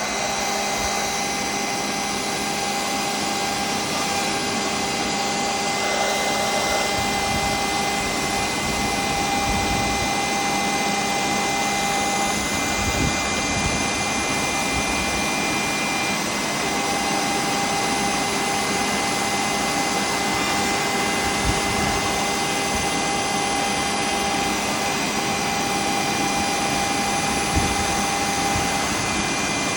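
Small JCID EM02 CNC milling machine running steadily, its spindle whining with several steady tones over a motor hiss, machining an iPhone 14 Pro Max frame for a physical SIM tray. A few faint ticks are heard, about a third of the way in and near the end.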